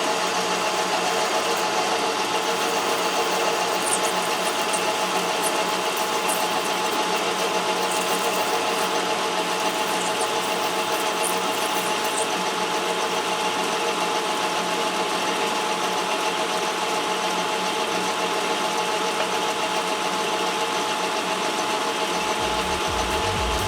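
Metal lathe running steadily while parting off a 3/4 inch steel shaft. The motor and gearing give a constant hum with a few fixed tones, and faint light ticks come from the cut partway through. There is no chatter now that the shallower chuck is mounted.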